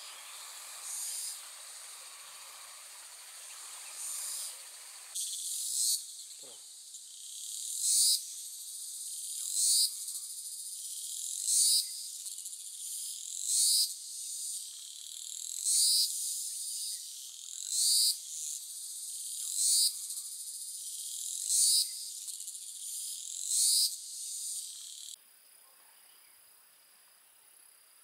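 Insects calling in a high-pitched chorus, with a louder pulsing call repeating about every two seconds. The repeating call starts about five seconds in and stops abruptly near the end.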